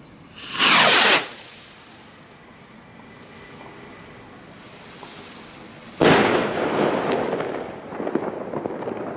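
A 20-gram Funke firework rocket launches with a loud whoosh that falls in pitch as it climbs away. About five seconds later it bursts with a sudden report, followed by a few seconds of crackling.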